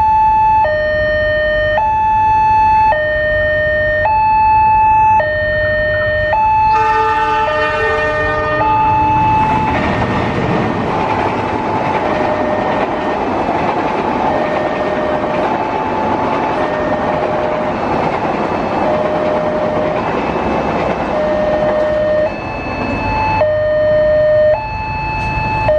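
An ambulance's two-tone hi-lo siren, alternating steadily between a higher and a lower note about once a second. About six seconds in, a locomotive horn sounds for about two and a half seconds. Then the passenger train's coaches rush past with a loud rumble and rattle until near the end.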